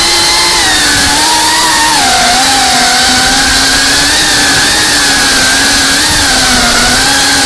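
GEPRC Cinelog 35 FPV drone's motors and propellers buzzing in flight, the pitch wavering up and down and dipping about two seconds in.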